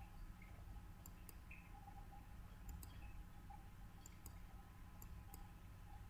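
Faint computer mouse clicks, about four pairs of quick clicks spread a second or so apart, over near-silent room tone with a faint steady hum.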